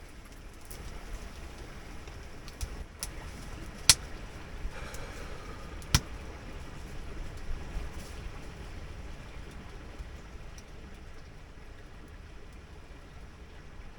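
Steady rushing of a creek running high with snowmelt runoff, broken by a few sharp knocks, the loudest about 4 and 6 seconds in.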